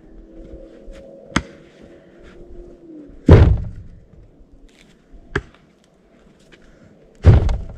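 Firewood logs tossed into a pickup truck bed: two heavy thunks about four seconds apart, with a couple of sharper knocks between them.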